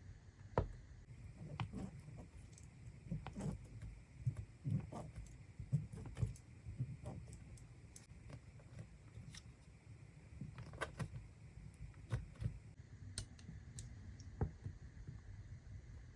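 Kinetic sand being worked by hand and with tools: scattered soft taps and clicks at irregular intervals, over low dull thuds.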